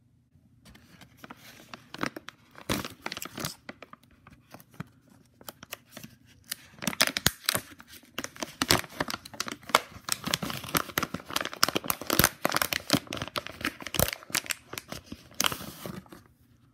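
A sealed plastic pouch being torn open at its tear seal and handled: a long run of crackly tearing and crinkling, loudest in the middle stretch, with a last burst of crinkling near the end.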